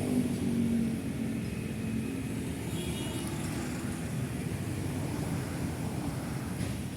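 City road traffic: a passing engine's tone fades away about a second in, then a steady low rumble of cars and motorbikes going by.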